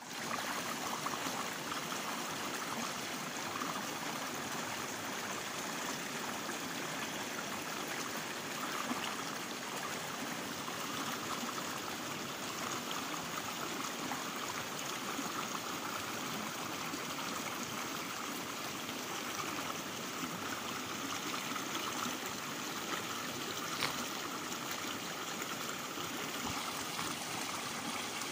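Small waterfall: water pouring and splashing steadily.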